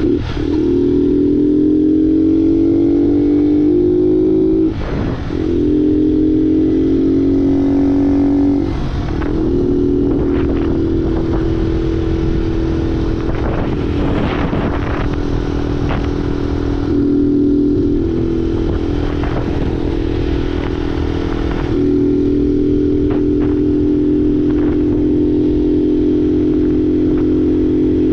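Honda Fan 125's single-cylinder four-stroke engine running under way with its air filter removed and a baffle-drilled ('varetado') exhaust, giving a loud, open intake and exhaust note. The note breaks briefly at gear changes about five and nine seconds in, then holds fairly steady with small shifts in pitch.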